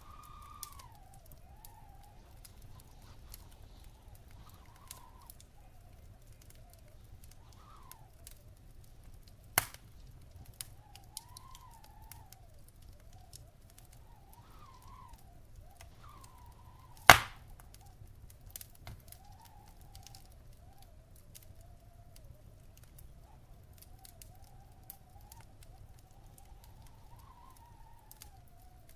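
Wood fire crackling in a fireplace, with scattered small snaps and two loud pops, one about ten seconds in and a louder one about seventeen seconds in. A low rumble and a faint wavering whistle run underneath.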